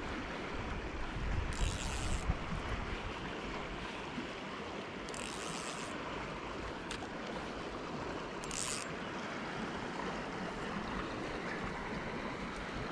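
Shallow river flowing steadily over a stony riffle, a constant rushing. Wind buffets the microphone for a moment about one to two seconds in, and three brief high hisses stand out along the way.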